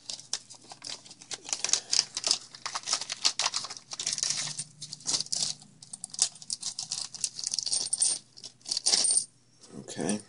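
Clear plastic parts bag crinkling and rustling in the hands as new parts are taken out of it, in irregular bursts, with a duller knock near the end.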